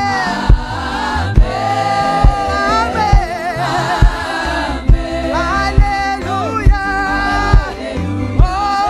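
Gospel music: voices singing held, wavering notes over a band, with a drum hitting a steady beat about once a second.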